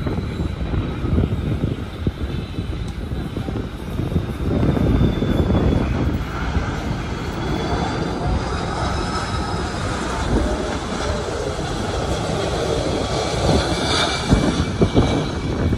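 Airbus A330-300 jet airliner on final approach, its engines at approach power: a steady rumble with a faint high whine that drifts slowly in pitch, growing a little louder near the end as the aircraft comes close.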